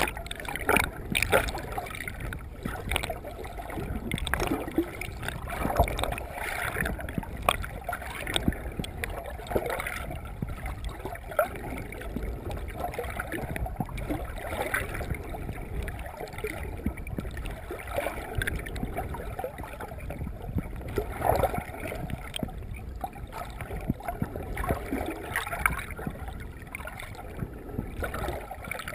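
Muffled water sloshing and gurgling around a submerged camera as a snorkeler swims, with irregular small clicks and knocks.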